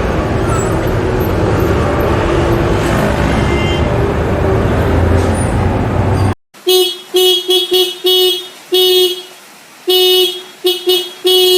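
Road traffic noise that cuts off abruptly about six seconds in, followed by a car horn honking in a quick string of short and longer blasts at one steady pitch.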